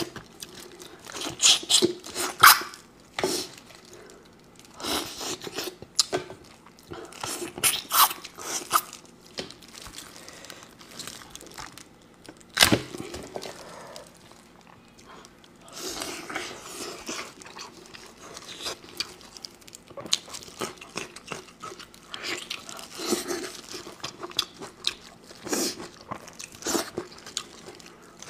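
Close-miked eating of a sheep's head in chili sauce: meat pulled and torn off the bone by hand, with bites, crunches and wet chewing in irregular bursts. There is one sharp crack about halfway through.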